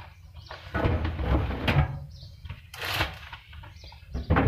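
Handling noises at a tumble dryer's open drum as laundry is loaded: rustling and soft knocks, with a sharper, louder knock near the end.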